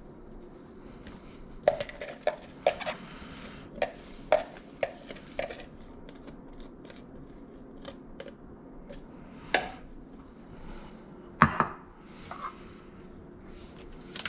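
Kitchen utensils and dishes clinking and knocking: a quick run of sharp clacks in the first few seconds, then a few sparser ones, the loudest about eleven and a half seconds in, over a steady low hum.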